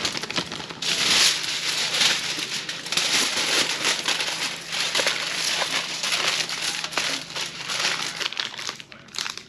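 Aluminium foil crinkling and crumpling without a break as it is folded and pressed by hand around a pile of chestnuts, loudest about one and two seconds in.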